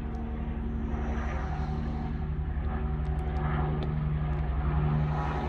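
A steady mechanical drone: a low, fast-pulsing hum with a few fixed-pitch tones, growing slightly louder toward the end.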